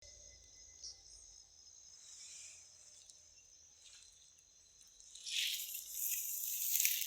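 Insects chirring steadily at a high pitch. From about five seconds in, a louder rustling noise comes in on top.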